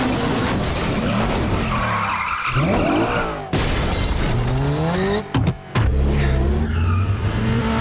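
Action-film chase sound mix: car and motorcycle engines revving up and down, with tyres skidding. A couple of sharp impacts come a little after five seconds in.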